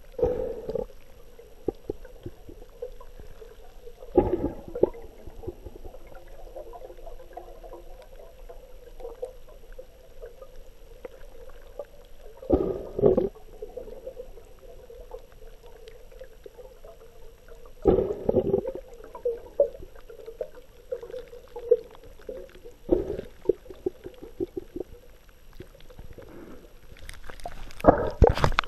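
Muffled underwater sound picked up through a submerged camera's waterproof housing: water sloshing and gurgling, with loud splashy bursts every few seconds.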